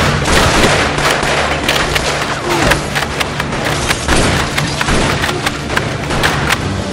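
A rapid, irregular volley of loud cracks and bangs, like dubbed-in gunfire, with faint music under it.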